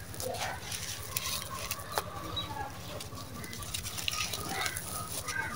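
Hands scooping and crumbling dry, gritty sand-cement powder: a soft gritty crunch with grains pattering back down and scattered small clicks. Underneath runs a steady low hum, with a few faint background calls.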